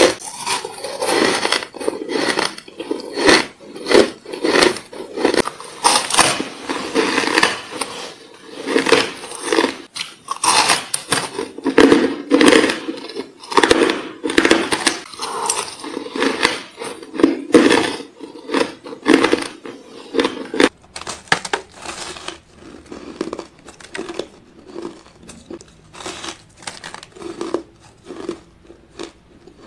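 A person biting into and chewing chunks of frosty ice close to the microphone: a dense run of crisp crunches and crackles, bite after bite. About two thirds of the way through the crunching becomes sparser and quieter.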